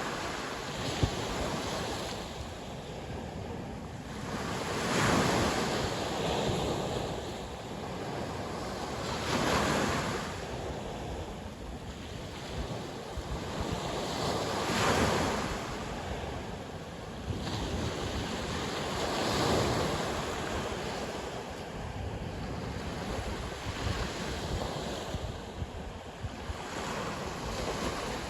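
Sea waves breaking and washing on the shore, each wave a rushing swell that rises and falls away, one roughly every five seconds.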